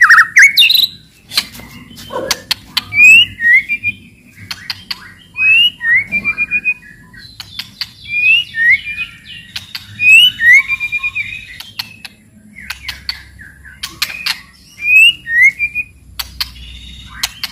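White-rumped shama (murai batu) singing: short rising whistled notes mixed with sharp clicking 'cetrek' notes and quick runs of repeated notes.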